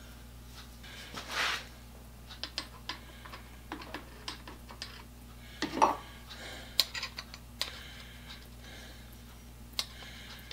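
Steel tools and parts clinking and knocking on a metal workbench: scattered light clicks, a brief scrape a little over a second in and a heavier knock about six seconds in, over a faint steady shop hum.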